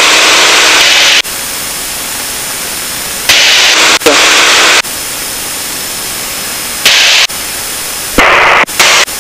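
Static hiss on the aircraft's radio and intercom audio, switching on and off abruptly four times over a quieter steady hiss.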